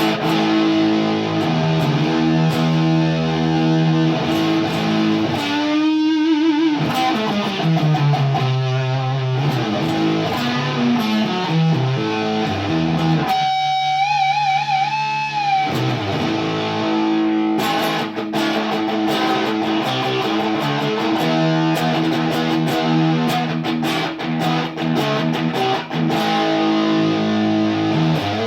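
Electric guitar played through a Sola Sound Fuzz Straight pedal, the fuzz circuit of a wah fuzz without the wah: sustained fuzzed chords and riffs. Single notes are bent with vibrato about six seconds in and again about fourteen seconds in.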